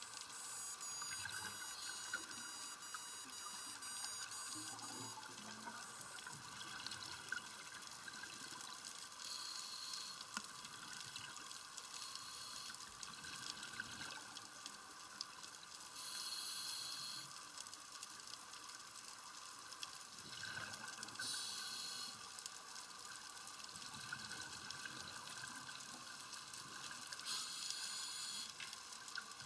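Underwater sound picked up through a camera housing: the bubbling rush of a scuba diver's exhaled breath, coming every four to six seconds, over a steady hiss.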